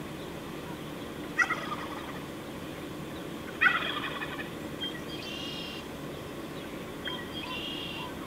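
Wild turkey gobbling: two loud, rapid rattling gobbles a couple of seconds apart, followed by fainter, higher calls.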